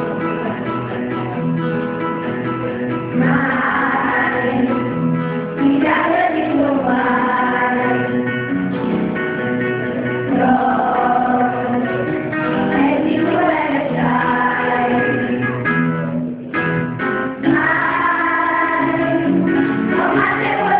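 Children's choir singing a song over guitar accompaniment, the voices coming in about three seconds after an instrumental opening.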